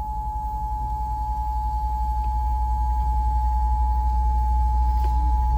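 Emergency Alert System attention signal: a steady two-note tone just under 1 kHz, held without a break, over a low steady rumble. It is the warning tone that comes before a broadcast severe weather alert.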